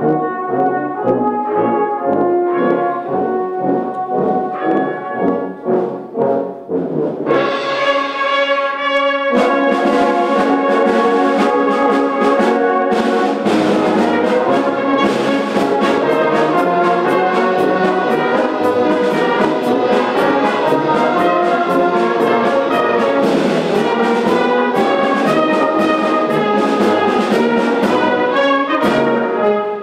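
Brass band with tubas, euphoniums, trombones and drum kit playing a piece under a conductor. A brighter passage enters about seven seconds in, and from about nine seconds the full band plays louder with regular drum strokes.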